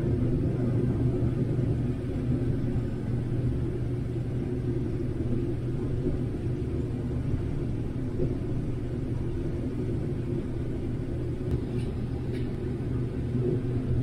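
Combine harvester running steadily while cutting corn, heard from inside the cab: a constant low hum from the engine and threshing machinery.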